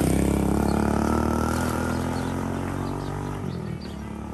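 A small engine running with a steady hum, loud at first and slowly fading, its low rumble dropping away about three and a half seconds in.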